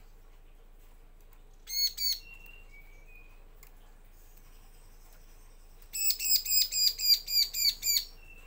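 Bar-winged prinia (ciblek) calling: two sharp notes, a few soft thin whistles, then a fast run of about ten loud clipped notes, some five a second, near the end.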